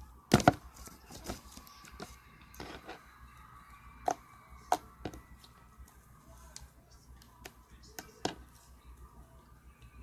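Slime being handled and squished by hand, giving scattered sharp clicks and pops. The loudest come about half a second in, with others around four, five and eight seconds in.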